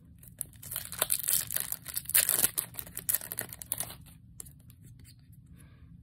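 Foil wrapper of a Yu-Gi-Oh King's Court booster pack being crinkled and torn open: a dense crackling that starts about half a second in and stops about four seconds in.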